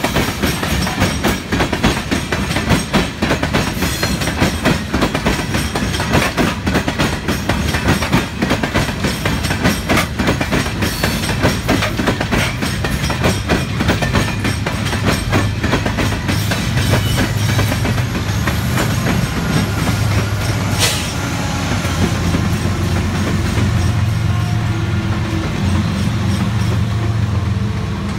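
Loaded Union Pacific gravel hopper cars rolling past with a steady clatter of wheel clicks over the rail joints. From about two-thirds of the way in, the low steady drone of the pusher diesel locomotives at the rear of the train grows louder as they draw alongside.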